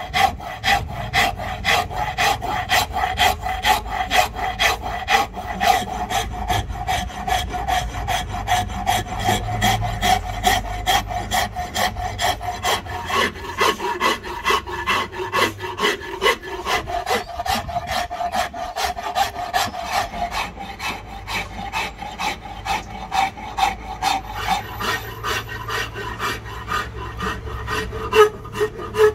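A hand rasp scraping along a Siamese rosewood axe handle in quick, even, repeated strokes, shaping the wood.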